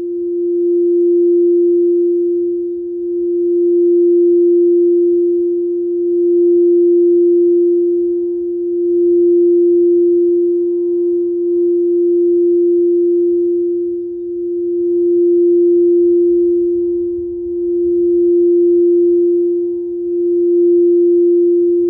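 Frosted quartz crystal singing bowl, a green heart-chakra bowl, sung by circling a wooden mallet around its rim. It holds one steady note with faint higher overtones, swelling and dipping about every two and a half seconds as the mallet goes round.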